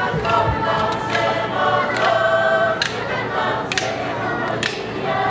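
A large group of voices singing together in chorus, with sharp knocks keeping a steady beat about once a second.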